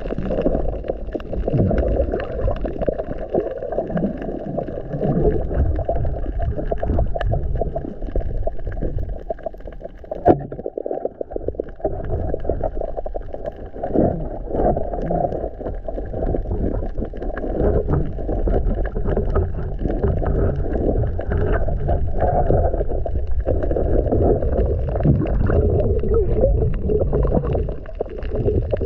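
Muffled underwater rumble and gurgling of water heard through a submerged camera housing, with one sharp click about ten seconds in.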